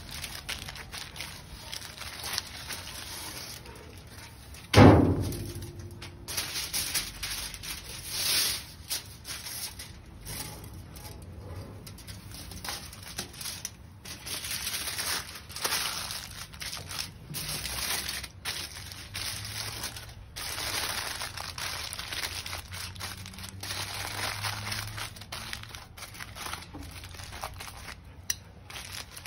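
Aluminium foil crinkling and rustling as it is unwrapped and folded by hand and with metal tongs. A single loud, sharp knock with a short ring comes about five seconds in.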